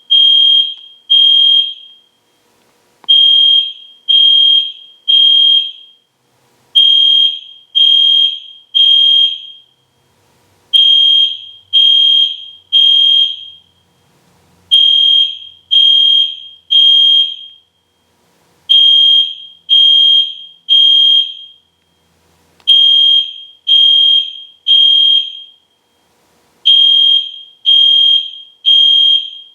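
EST Genesis fire alarm horn sounding a loud, high-pitched tone in groups of three short blasts with a pause between groups, repeating about every four seconds. This is the temporal-three pattern that signals a building evacuation.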